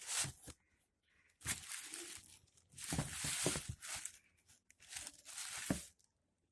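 Rustling and crinkling as the sneakers are handled, in four short bursts of about a second or less.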